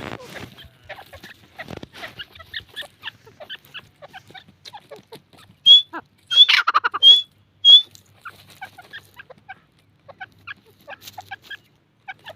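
Dakni teetar (francolin) chicks cheeping, with many short, soft peeps throughout. About halfway through come four loud, sharp call notes, with a harsher burst of calling among them.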